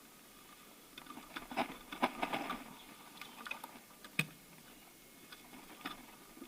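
Light hand-work noises at the engine's intake hose: soft rubbing and scattered small clicks, busiest between one and three seconds in, with one sharper click about four seconds in.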